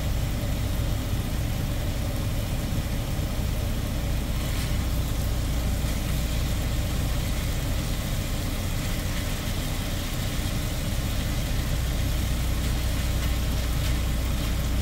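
Semi truck's diesel engine idling with a steady low drone, heard inside the cab, with faint scraping of a spatula in an electric skillet.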